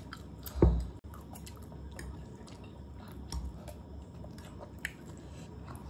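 Close-up eating of buff chowmein noodles: wet chewing and slurping, with faint clicks of forks. One dull thump just under a second in is the loudest sound.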